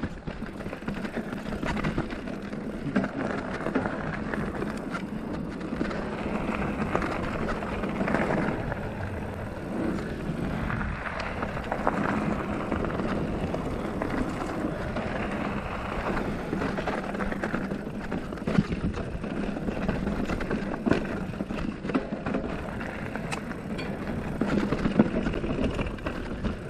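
Felt Decree 3 mountain bike riding over a rocky dirt trail: steady tyre noise on dirt and stones, with constant rattles and sharp knocks from the bike as it hits rocks.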